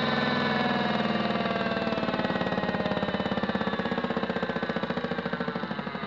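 Modified Miele W1 toy washing machine's small electric motor and drum winding down from a spin. The whine falls steadily in pitch while a rhythmic pulsing grows stronger, and the sound fades near the end.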